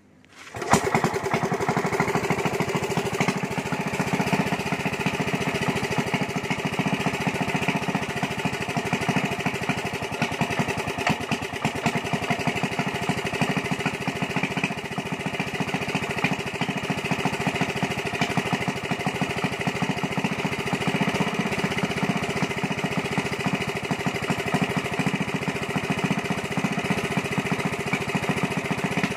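Small single-cylinder gasoline engine pull-started on its recoil cord, catching about half a second in and then running steadily.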